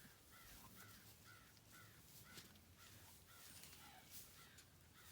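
Faint bird calls repeated steadily, about two short calls a second, over otherwise near silence.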